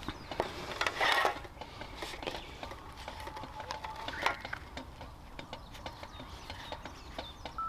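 Metal utensils clinking and scraping against cookware in short, irregular clatters, loudest about a second in and again around four seconds.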